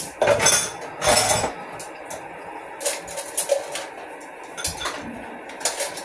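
Dishes and utensils clinking and knocking at a kitchen sink as a bowl is handled: two louder clatters in the first second and a half, then scattered lighter clinks.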